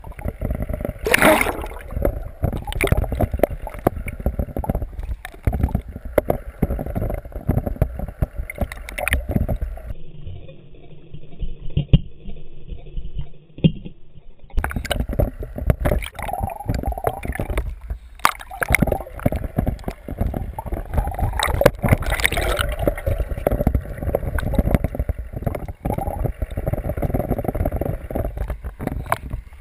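Water churning and gurgling around a submerged camera, with frequent knocks and bumps against it. About ten seconds in it drops to a faint steady hum for roughly four seconds, then the churning returns.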